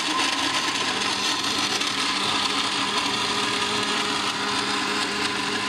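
Countertop blender with a glass jug running steadily at its highest speed, pureeing orange peels in water.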